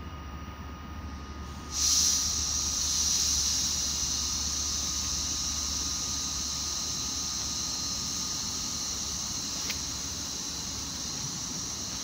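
A sudden loud hiss of air starts about two seconds in and carries on steadily, from the standing Intercity passenger train, with a faint low hum underneath.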